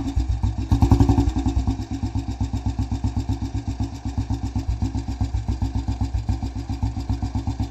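Royal Enfield Bullet 350's single-cylinder four-stroke engine idling with an even, fast thump, with a brief rise in revs about a second in before it settles back to idle.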